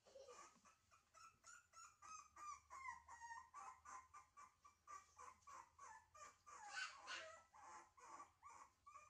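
Young puppy whimpering faintly in a quick run of short high-pitched cries, a few each second, with a louder cry about seven seconds in.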